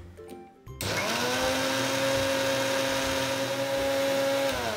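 Electric blender motor switched on about a second in, whining quickly up to speed and running steadily as it blends a thick milkshake of milk, ice cream and biscuits, its pitch starting to fall as it is switched off at the end.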